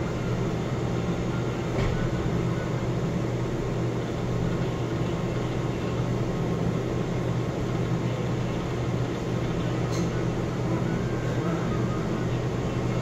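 Steady low droning hum with a background hiss, with a couple of faint ticks about two seconds in and near the end.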